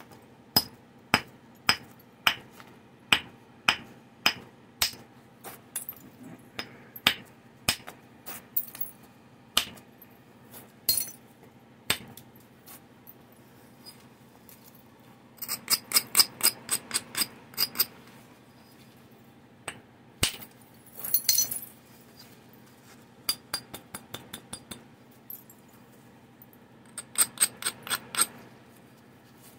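Flintknapping on a stone Clovis preform: a hammerstone ticks against its edge in a string of sharp clicks about every half second, then quick rasping runs of clicks as the edge is rubbed with an abrader, which prepares the edge for antler-billet strikes.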